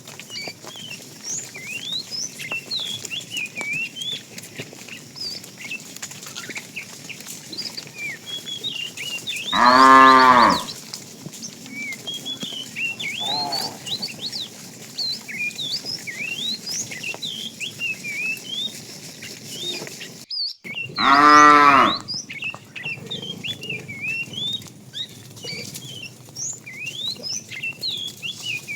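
Cattle mooing: two loud, drawn-out moos about a second long each, roughly ten and twenty-one seconds in, with a faint short one between them. Small birds chirp constantly in the background.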